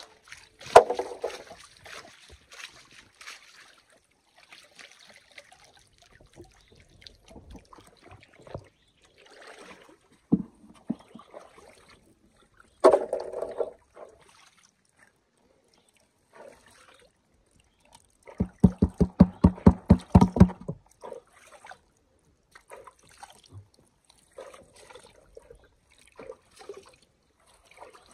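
Water sloshing and splashing in a wide gold pan as a miner swirls and shakes it in shallow muddy water to wash off sediment. There are a few separate splashes, and about two-thirds of the way through a quick run of about a dozen rhythmic sloshes, some six a second, as the pan is rocked side to side.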